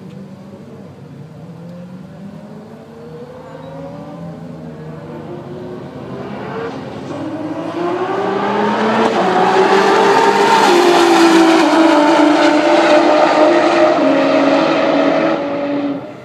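Two race cars at full throttle in a roll race, their engines climbing in pitch as they accelerate toward the listener and growing much louder. The pitch dips slightly as they pass close by, and the sound cuts off sharply near the end.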